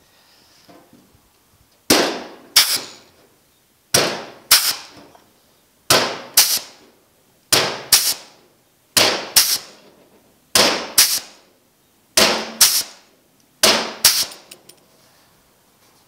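Flanging tool snapping along the edge of sheet-steel door panel, pressing a stepped flange into it one bite at a time: eight pairs of sharp metallic snaps, a pair about every one and a half to two seconds, each with a short ring.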